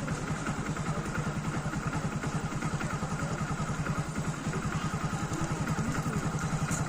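Hero Splendor motorcycle's single-cylinder four-stroke engine idling steadily, with an even, rapid pulse.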